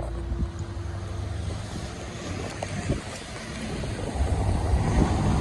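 Car tyres hissing on a wet road with rumble and wind from the open window as the car drives over a railway level crossing, getting louder near the end.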